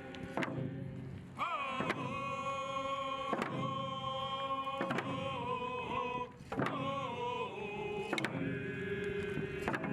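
Voices singing a slow chanted song with long held notes, over a drum struck about once every one and a half seconds.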